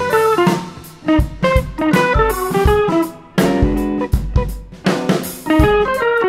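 Background music with plucked string notes over drums.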